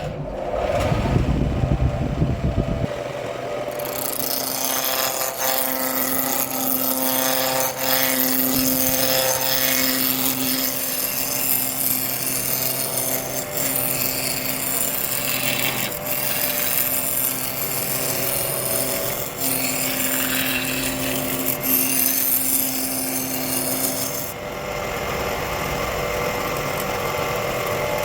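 Wood lathe running with a steady motor hum while a turning tool cuts the spinning wood, a rasping hiss. The cutting stops near the end and the motor keeps running.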